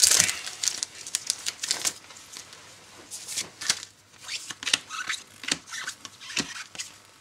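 Trading cards from a just-opened booster pack being handled and flicked through, a run of crisp clicks and snaps, with a loud crinkle of the foil wrapper right at the start.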